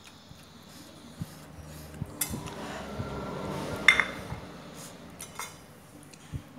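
Metal cutlery clinking and tapping against a dish: a few light knocks, then one sharp, briefly ringing clink about four seconds in.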